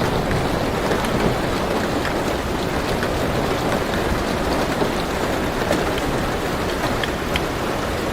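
Steady rain falling on a car roof, heard from inside the car: an even hiss with scattered single drops ticking through it.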